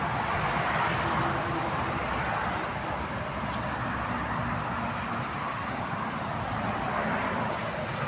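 Road traffic: a steady hiss of passing vehicles.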